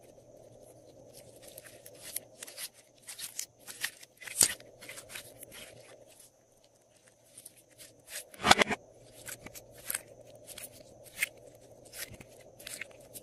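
Pink glossy slime being stretched, folded and squeezed by hand, giving a run of small sticky clicks and crackles, with a louder crackling burst about eight and a half seconds in.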